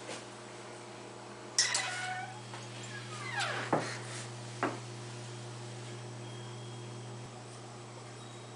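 Domestic cat meowing twice, first about one and a half seconds in and then a longer call that falls in pitch, followed by a short sharp click.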